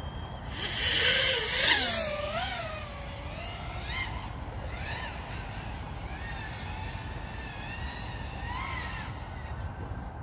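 FPV freestyle quadcopter with iFlight Xing-E Pro 2306 1700kv motors on Gemfan 51466 props, whining as its pitch rises and falls again and again with the throttle. A louder rush of noise comes between about half a second and two seconds in.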